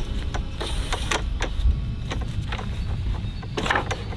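Awning support poles being pulled loose and handled: a string of irregular sharp clicks and clacks, with a louder clatter near the end, over a steady low rumble.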